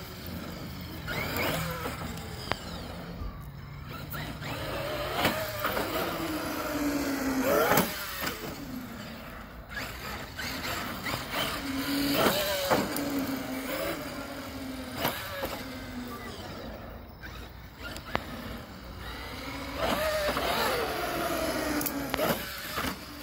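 Radio-controlled monster truck's motor whining, its pitch rising and falling over and over as the truck speeds up and slows down.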